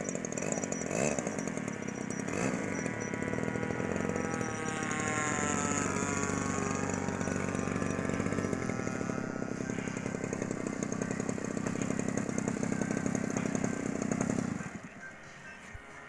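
Small RC model-airplane engine running at high revs: a steady buzz whose pitch slides up and down a few seconds in, then falls away sharply near the end.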